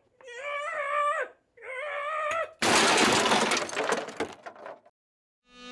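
Two drawn-out, high-pitched vocal sounds, then a loud crash of shattering glass that fades out over about two seconds.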